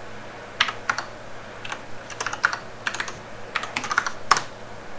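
Computer keyboard typing: short runs of keystrokes in separate bursts, a few clicks at a time, with the loudest keystroke a little over four seconds in.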